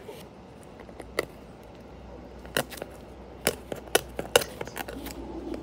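Clear plastic film on a small cardboard box being picked at and peeled off by fingers: a scattered string of sharp crackles and clicks, most of them in the second half.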